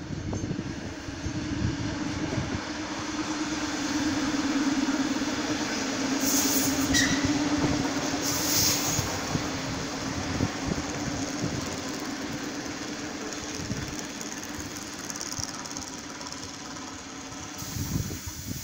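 Passenger train arriving at a station: a steady hum with the knocking of wheels over the rails, loudest in the middle and easing off as it slows, with two short high hisses about six and eight and a half seconds in.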